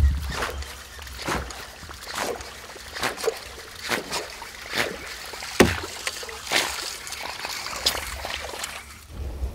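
Topwater lure being jerked across calm water, splashing sharply about once a second as it is worked back toward the boat.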